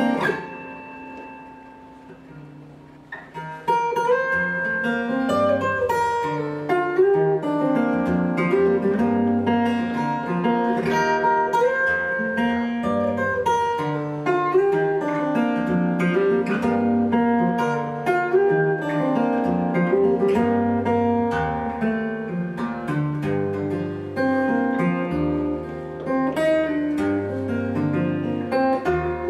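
Solo acoustic guitar played fingerstyle. A chord rings out and fades for about three seconds, then the picking resumes with a melody over a moving bass line.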